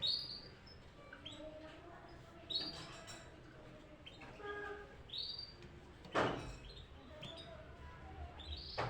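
Small songbird calling: short, high chirps every second or so, each dropping in pitch, with two louder harsh, rasping notes, one about six seconds in and one at the end.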